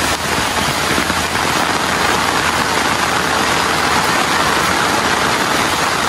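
Heavy rain falling as a steady hiss over the low, even hum of a vehicle's engine.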